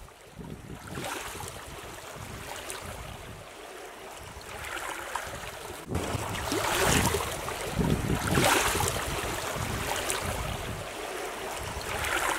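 Small waves lapping and splashing on a pebbly lake shore, with several louder washes from about six seconds in.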